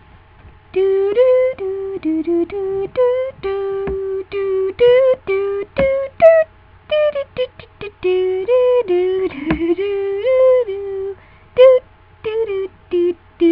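A voice singing a wordless 'doo-doo-doo' tune: a quick run of short, separate notes, mostly held on one or two pitches, with small slides up and down between some of them.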